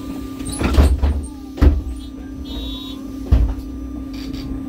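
MAN Lion's City hybrid city bus standing with a steady hum while its doors close: three heavy thumps and a short high beep about halfway through.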